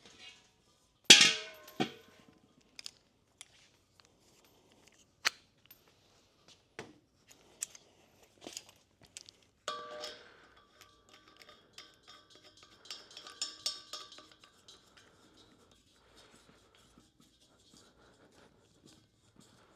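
Metal parts being handled and set down: a sharp, ringing metal clank about a second in, another ringing clatter about ten seconds in, with scattered clicks and taps and some light scraping between them.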